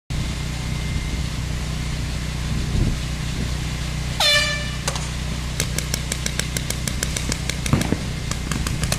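An air horn gives one short blast to start a paintball game. About a second later paintball markers start firing, sharp pops coming faster and in quick strings, over a steady low rumble.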